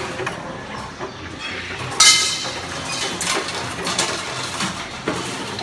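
CNC wire-bending machine working: a loud metallic clank with a ringing tail about two seconds in, then lighter clinks and knocks at irregular intervals over a steady low hum.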